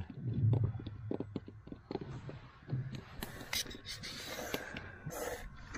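Scattered small clicks and light scraping of close handling noise, with a few short rustling bursts from about three seconds in.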